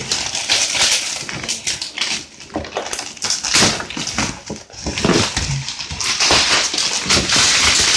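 Packaging being handled and opened by hand: irregular rustling, crinkling and crackling of box and wrapping.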